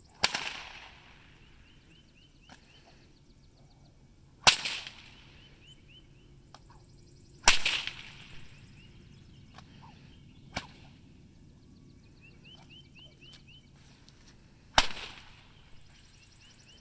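Whip cracking sharply four times, a few seconds apart, with a fainter fifth crack between the third and fourth; each crack rings out briefly.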